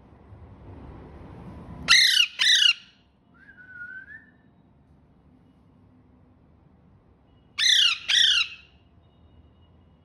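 Alexandrine parakeet squawking: two pairs of loud, harsh calls, each call falling in pitch, one pair about two seconds in and another near eight seconds, with a short, softer note shortly after the first pair.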